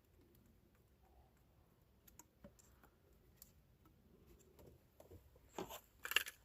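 Faint, scattered clicks and taps of small parts being handled, with a few louder clicks near the end.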